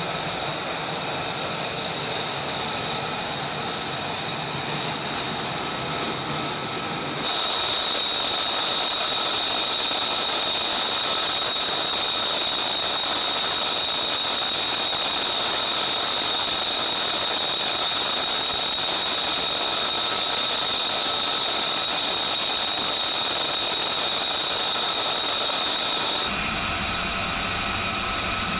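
Steady high-pitched turbine whine over rushing noise, the ambient running noise of aircraft or ground-support turbine machinery. It jumps louder about a quarter of the way in and drops back near the end, where a low rumble comes up.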